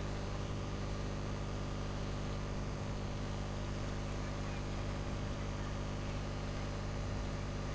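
A steady low hum made of several even tones, unchanging throughout, with no voices or music over it.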